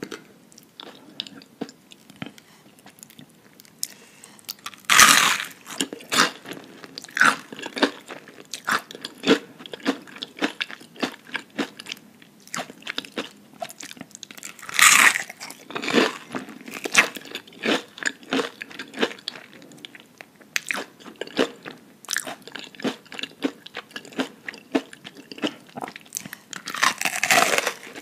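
Bites into crumb-coated fried onion rings, each a loud crunch, followed by crunchy chewing. After a quieter start, three big bites come roughly ten seconds apart, the first about five seconds in.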